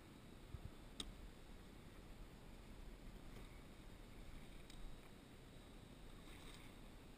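Near silence: a faint low rumble, with one sharp click about a second in and a few fainter ticks later.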